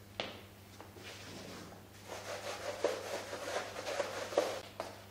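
Blackboard eraser scrubbing chalk off a blackboard in quick back-and-forth strokes, starting about two seconds in, with a few knocks against the board.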